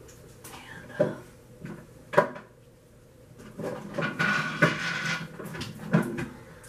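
A few sharp knocks and thuds of things being handled and set down, about a second in, again around two seconds, and once near the end, with a stretch of rustling in between.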